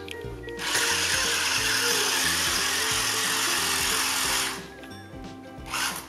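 Small electric motors of an SGILE RC stunt car running at full power, a steady whirr lasting about four seconds that starts about half a second in, over background music.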